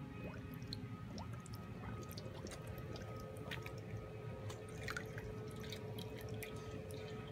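Dogs blowing bubbles and lapping in steel water bowls: small splashes, drips and bubbling pops as many short ticks, over background music with a steady held tone.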